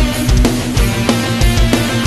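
Loud heavy rock backing music with guitar and repeated deep drum hits.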